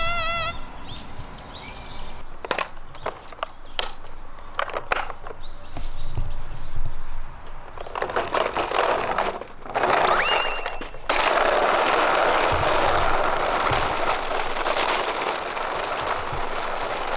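Sharp plastic clicks and knocks from a toy car-carrier truck's case being handled and shut. Then, from about eleven seconds in, the steady rolling noise of the toy truck's hard plastic wheels pushed across paving stones.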